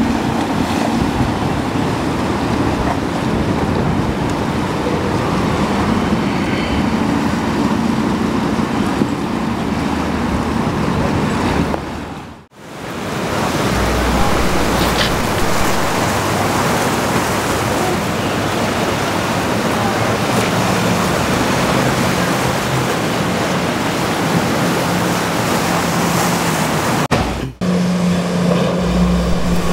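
Motorboat engines running amid wind and breaking surf. The sound cuts out abruptly twice, about twelve seconds in and shortly before the end, each time coming back as a fresh stretch of engine and water noise.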